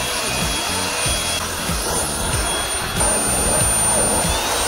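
Colton cordless mini blower with a brushless (BLDC) motor running at full power: a steady high motor whine over rushing air, which the user calls a really strong wind. It gets a little louder about three seconds in.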